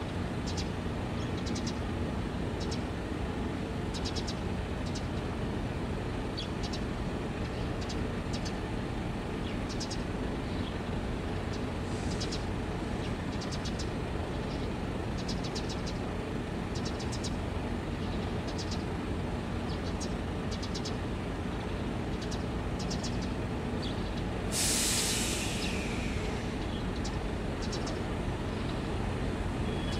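Steady low engine rumble of harbour traffic, with short high chirps scattered throughout. A loud hiss of released air comes about 25 seconds in and fades over a second or so.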